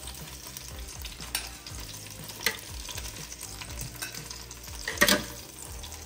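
Food frying in a pan, sizzling and crackling steadily, with a few sharp clicks, the loudest about five seconds in.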